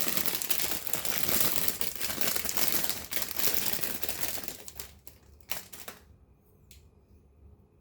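Plastic packaging crinkling and rustling as it is handled and pulled open, then a few sharp separate clicks near the end.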